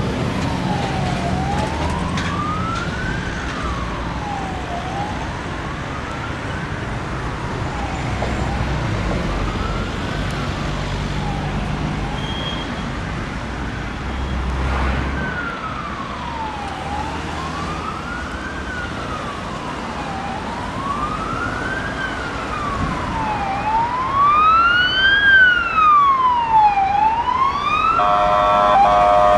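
Emergency vehicle's electronic siren on a wail setting, sweeping slowly up and down about every three seconds over road traffic, louder near the end as it comes closer. Just before the end it switches to a harsher signal of short, steady tones.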